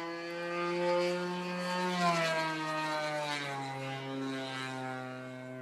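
Gas engine of a large RC Extra stunt plane running in flight, a steady droning buzz whose pitch climbs and then falls away about two seconds in.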